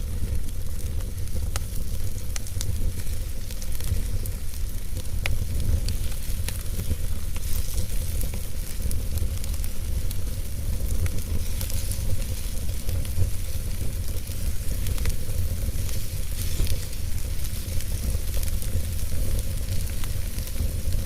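Wood fire burning in a fireplace: a steady low rumble and a hiss, with sharp crackles and pops at irregular moments.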